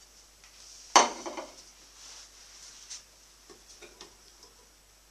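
A ceramic plate set down with a sharp clink about a second in, followed by a few lighter clicks and clatters of crockery and utensils.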